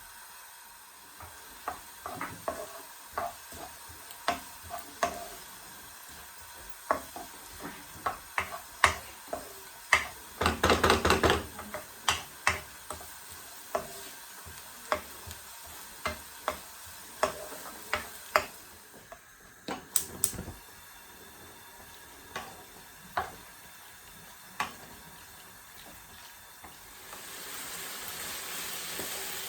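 Kitchen utensils knocking and clinking against pots and pans, with a quick run of taps about ten seconds in. Near the end a steady sizzle of food frying in a hot pan starts up.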